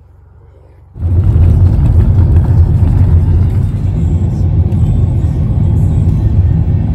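Loud, steady low rumble of a car driving, starting suddenly about a second in.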